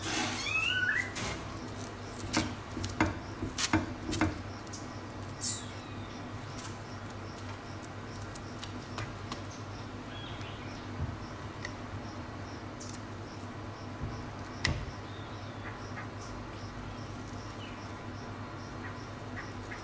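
Hand patting and smearing thin rakhal bread batter across a hot round metal griddle: soft taps and pats, thickest in the first four seconds, over a steady low hum, with a couple of short high squeaky chirps.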